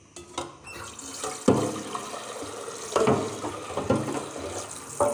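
Water running and splashing in an aluminium cooking pot held at a sink as it is rinsed. Four sudden louder hits break in as the pot is moved.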